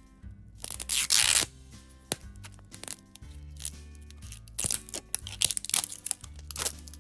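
Packaging being torn open and crinkled: a loud rip about a second in, then a run of sharp crackles near the end, over soft background music.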